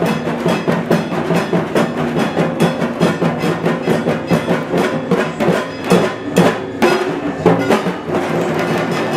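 A group of dhak drums, the big Bengali barrel drums played with thin sticks, beaten together in a fast, dense, steady rhythm. A few louder strokes stand out about six to seven seconds in.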